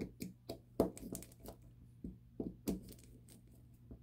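Faint, irregular small clicks and taps of a hand driver working the small screws of a model nitro engine's head protector as they are run down, a few a second, trailing off in the last second.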